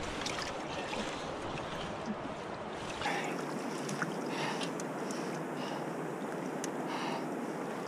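Steady rushing noise of water and wind on the microphone, with a few faint ticks; the low rumble drops away abruptly about three seconds in.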